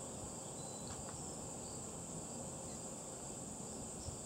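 Insects trilling in a steady, unbroken high-pitched chorus.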